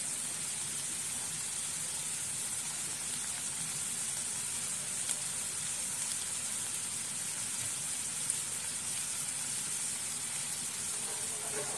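Prawns and chopped onions sizzling steadily in a non-stick kadhai: an even, soft hiss.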